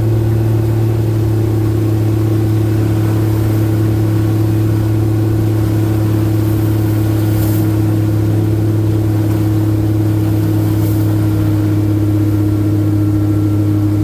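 A vehicle engine running at a steady speed, an even hum that does not rise or fall, with road and wind noise under it.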